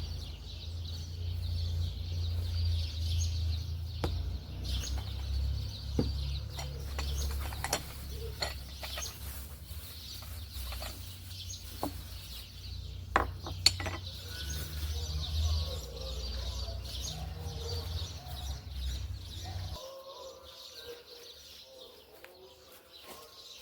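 Chickens clucking with small birds chirping, over a low steady rumble that stops about twenty seconds in. A few sharp clicks.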